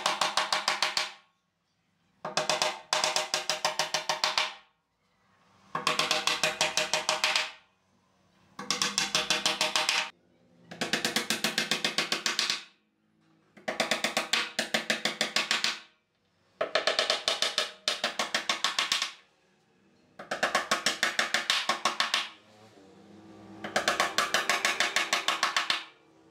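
Claw hammer driving nails into a pine-board box: bursts of rapid strikes about two seconds long, nine in a row, with short pauses between them.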